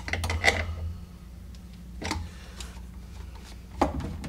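Scattered light clicks and knocks of a hand tool and fingers on a plastic sink pop-up drain assembly: a few quick taps at the start, then single knocks about two seconds in and near the end, over a low steady hum.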